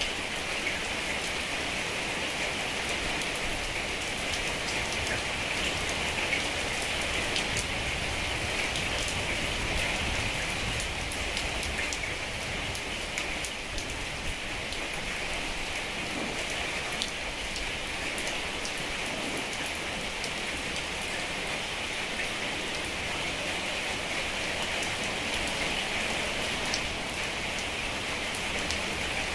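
Heavy rain falling steadily: an even hiss with many small drop ticks through it.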